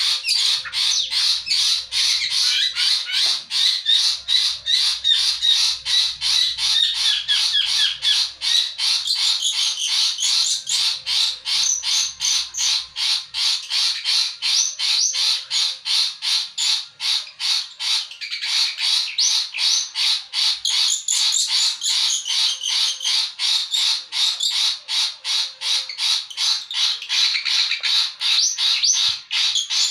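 Long-tailed shrike (pentet) singing continuously: a fast, unbroken run of notes, several a second, packed with song phrases mimicked from other birds.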